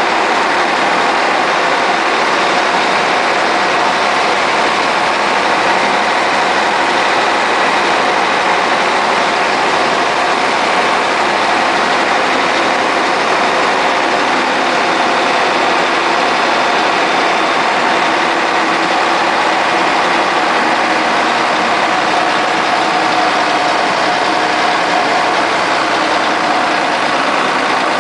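Semi-truck's diesel engine running at a low, steady pace as the tanker rig slowly reverses, an even mechanical noise with no breaks.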